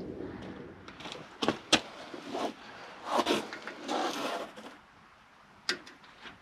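Hand tools and parts being worked on a truck's front locking hub: two sharp clicks about a second and a half in, then two longer scraping rubs, and one more click near the end.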